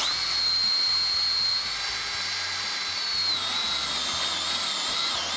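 Makita cordless drill spinning a hole saw over the end of a round wooden leg, using it as a makeshift tenon cutter: a steady high motor whine that starts abruptly and dips slightly in pitch about three seconds in.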